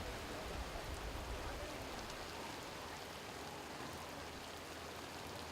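Steady hiss of falling rain, with a few faint drop ticks.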